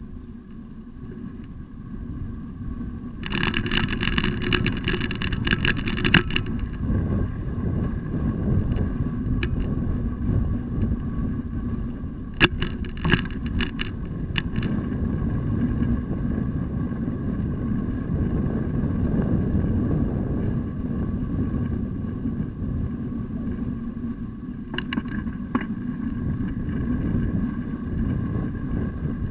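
Steady low rumble of wind and tyre noise on the microphone of a camera mounted on a moving bicycle. A few seconds in, a stretch of rapid ticking and rattling lasts about three seconds, and there are scattered clicks about twelve seconds in and again near the end.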